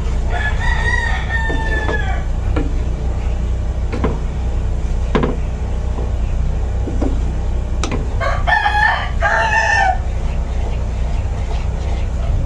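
A rooster crowing, once just after the start and again about eight seconds in, over a steady low hum. A few light knocks of a wooden spatula against a frying pan come between the crows.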